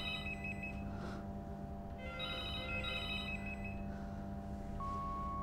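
Telephone ringing with a warbling electronic ring, in bursts of about a second roughly three seconds apart: one ring ends just at the start and another sounds about two seconds in, over a steady low hum.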